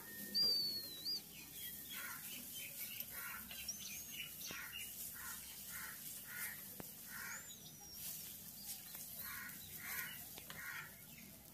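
Birds calling: a few short whistled notes, the loudest about half a second in, over a run of softer repeated chirps, all faint.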